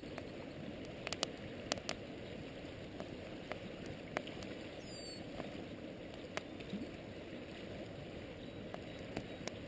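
River water running steadily, with scattered sharp clicks and ticks over it.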